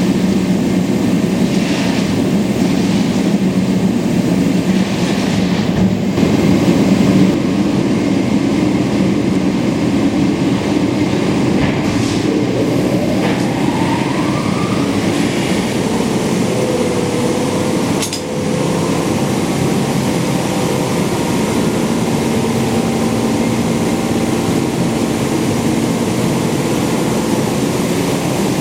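Amada Promecam HFBO CNC press brake running under power, its hydraulic system humming steadily. A brief rising whine comes partway through, and later a sharp click with a short dip in level.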